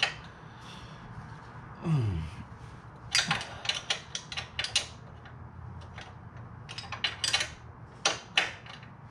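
Ratchet wrench and metal hand tools clicking and clinking as the skid plate bolts are backed out, in two spells of quick clicks, a few seconds in and again near the end. A brief falling low sound comes about two seconds in.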